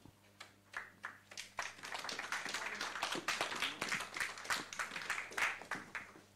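Audience applauding. It starts with a few scattered claps, builds into steady applause after about a second and a half, and dies away near the end.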